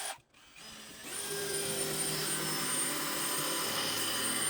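Electric drill starting about a second in and then running steadily at speed with a high whine, its bit boring into steel.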